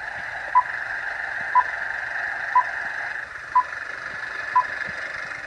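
Film-leader countdown sound effect: five short beeps, one each second, over a steady hiss.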